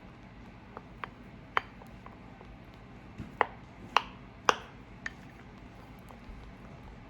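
A mixing utensil clinking against a bowl as glue and shaving foam are stirred together for slime: about seven short, sharp clicks, the loudest three coming close together a little past the middle.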